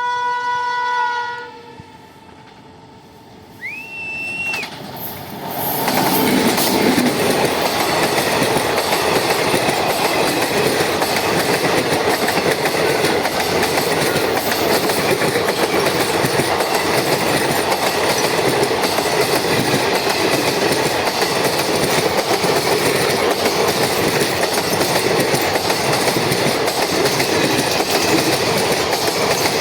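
Electric locomotive horn sounds for about a second and a half, a short high whistle follows a couple of seconds later, and then a passenger train rolls past at steady speed, its wheels clattering on the rail joints.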